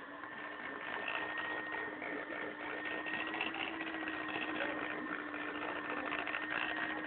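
Electric hand mixer running steadily, beating cream in a bowl.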